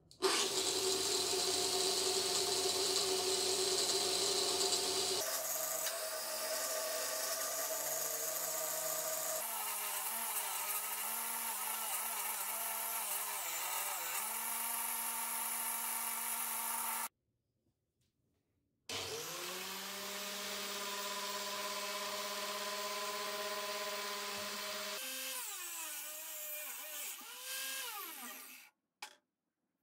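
Angle grinder with a wire cup brush running as a steel bar is fed under it, its pitch shifting as the load changes. It cuts out for a couple of seconds about 17 s in, then spins up again with a rising whine and runs on, wavering near the end before it stops.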